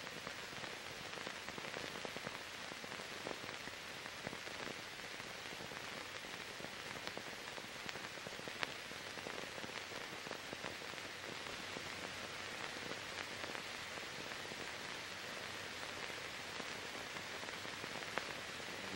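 Steady hiss with a few faint scattered clicks: the background noise of a silent archive film transfer, with no sound from the scene itself.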